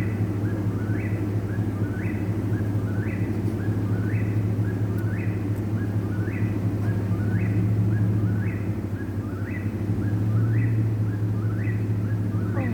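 Whip-poor-will singing its 'whip-poor-will' song over and over, about one call a second, each ending in an upward sweep. A steady low hum runs underneath.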